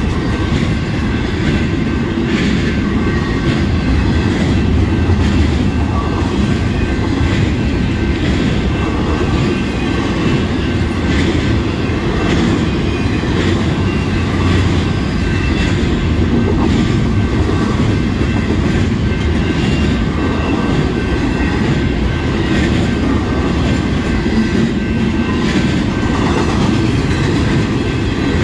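Intermodal freight train of double-stack container and trailer-carrying well cars rolling past at a steady speed: a continuous rumble of steel wheels on rail with repeated clicks as wheels cross rail joints.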